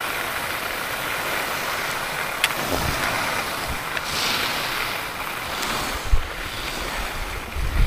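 Wind blowing across a camera microphone: a steady rushing hiss, with a few low buffeting thumps in the last two seconds.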